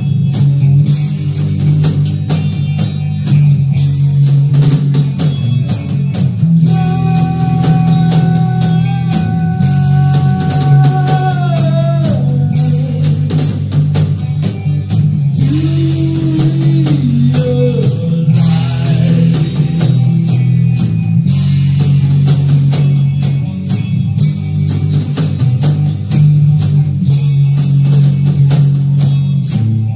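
Live hard rock band playing: a drum kit keeps up busy drum and cymbal hits over a steady bass, while an electric guitar holds long lead notes that bend downward.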